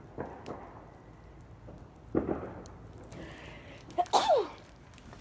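A person sneezes once, about four seconds in: a sudden loud burst with a voiced sound that falls in pitch. A few softer knocks come before it.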